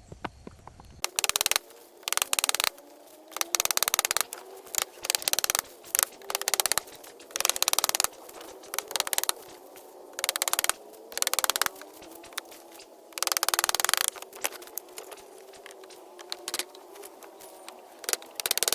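A power tool run in about a dozen short bursts, each a rapid mechanical clatter of fast ticks, with short pauses between them.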